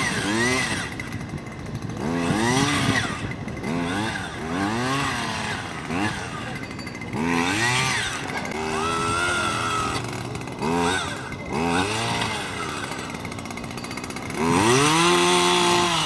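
Two-stroke petrol earth auger's engine drilling planting holes. It revs up and falls back again and again, about every two seconds, then is held at high revs near the end.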